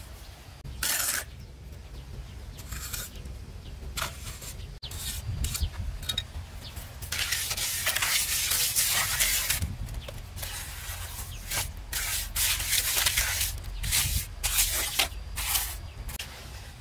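A series of rough scraping strokes of varying length, with a longer unbroken stretch in the middle and shorter strokes after it.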